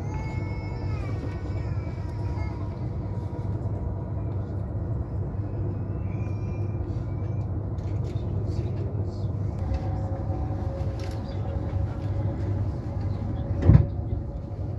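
Cabin noise of a Renfe high-speed train running at speed: a steady low rumble, with a whine that steps down in pitch in the first couple of seconds. A single sharp knock sounds about a second before the end.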